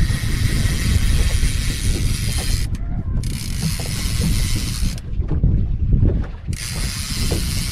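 Fishing reel cranking and ratcheting in three spells as a small hooked fish is reeled in, over a steady low rumble of wind and water.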